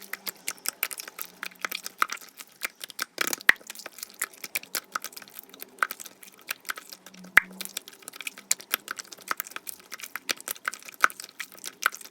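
Toy slime being squished, pressed and stretched by hand, giving a dense run of irregular crisp clicks and small pops, several a second, the sound of air pockets bursting in the slime.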